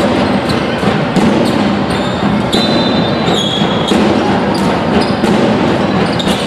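Basketball bouncing on a sports hall court with shoes squeaking, a couple of short high squeaks around the middle, over steady hall noise.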